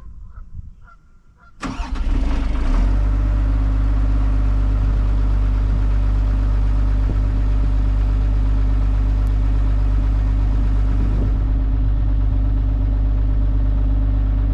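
Kobelco SK250 LC excavator's diesel engine starting up about two seconds in, then running steadily at idle.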